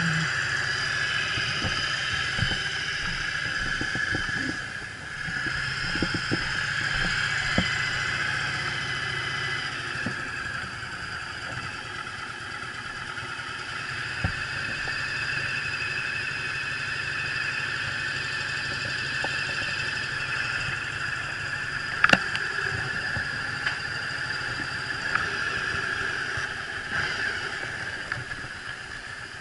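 Yamaha Drag Star 1100's air-cooled V-twin idling steadily, with a single sharp click about three-quarters of the way through.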